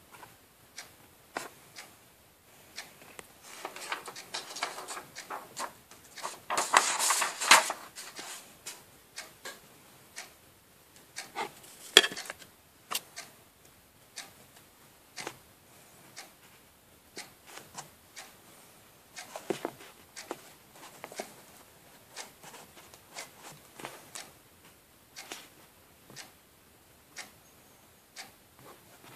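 Small objects handled on a tabletop: scattered light taps and clicks, with rubbing noise about four seconds in, a louder stretch of rubbing around seven seconds, and a sharp click about twelve seconds in.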